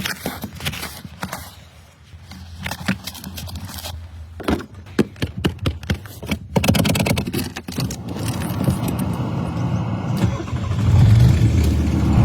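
Scattered clicks, knocks and rattling, then a car engine starts about two-thirds of the way in and keeps running, growing louder.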